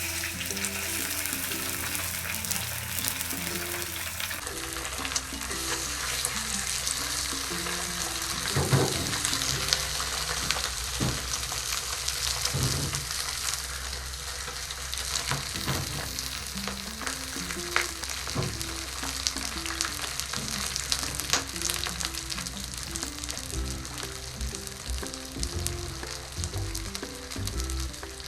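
Food sizzling as it fries in a pan, with occasional sharp knocks of a stirring utensil against the pan.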